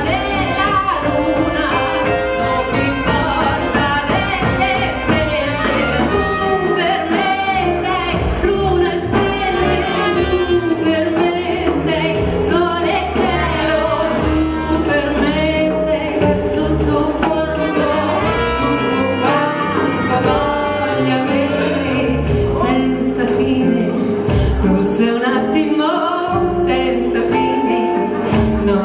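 Live band music: a woman singing an Italian song, backed by guitar, double bass and drums, with trumpet and saxophone in the band.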